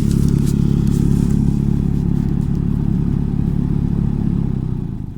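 Lada Priora heater fan humming loudly and steadily, dying away near the end. The owner suspects a napkin or scrap of paper from the glovebox has been sucked into the heater through the open recirculation flap.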